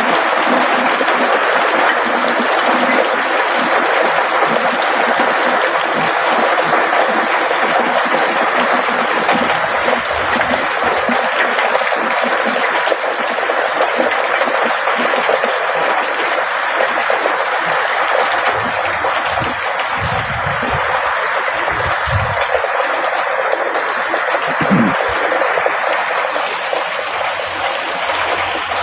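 Heavy rain pouring down in a steady rush, with a few brief low rumbles about two-thirds of the way through.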